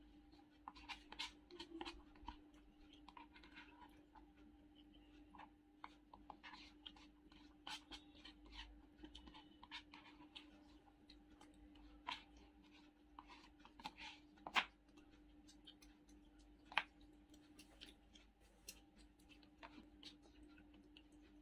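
Metal spoon scraping and tapping inside a cardboard biryani bucket as the last of the rice is scooped out: scattered scratches and small clicks, with a few sharper knocks in the second half, over a steady faint hum.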